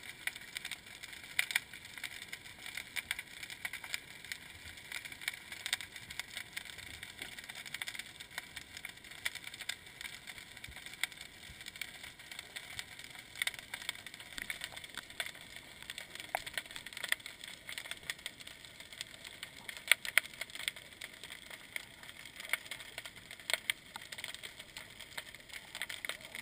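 Underwater sound picked up through a camera's waterproof housing: a steady muffled hiss with many irregular sharp clicks and crackles.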